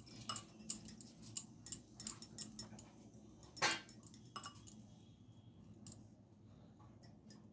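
Hands rolling a ball of milk-powder peda dough between ghee-greased palms over a steel plate: soft, irregular clicks and small sticky squishes, thicker in the first few seconds. One louder short noise comes about three and a half seconds in.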